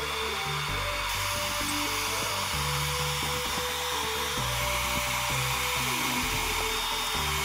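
Hand-held hair dryer running steadily, an even rushing hiss of blown air, aimed at a plastic motorcycle headlight assembly.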